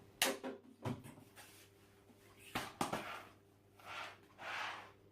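Plastic vacuum cleaner parts being handled: a few sharp knocks and clicks in the first three seconds, then two short rustling sounds near the end. The cleaner's motor is not running.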